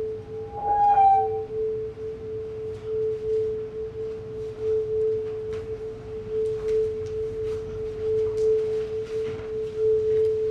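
A steady, unbroken drone tone from the stage sound score, with a brief, louder higher tone with overtones about a second in. Faint scattered ticks and rustles follow.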